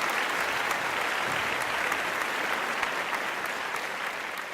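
Audience applauding: a dense, steady clapping, easing slightly near the end.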